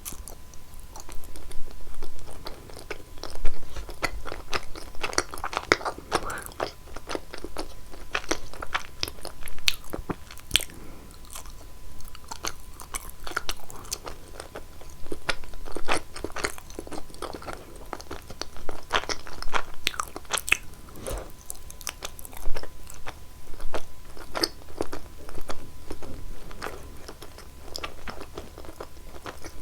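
Close-miked eating sounds: repeated bites and chewing of cheese, with many short, irregular crunchy clicks.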